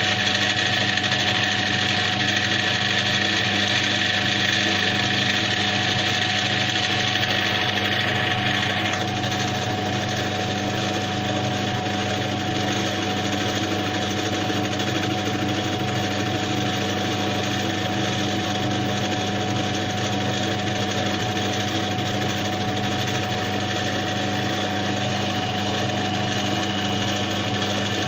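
A small electric machine running steadily with a constant hum. A higher hissing layer on top of it stops about nine seconds in, and the machine keeps running afterwards.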